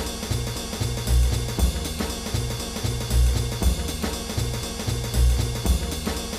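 Background music with a steady drum-kit beat and a pulsing bass line.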